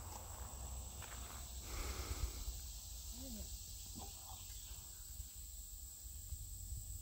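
Summer outdoor ambience: insects droning steadily at a high pitch, over a constant low rumble. No siren is heard.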